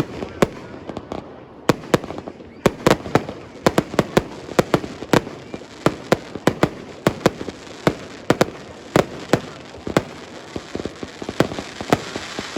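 Fireworks display: many sharp bangs and crackles going off in quick, irregular succession, several a second.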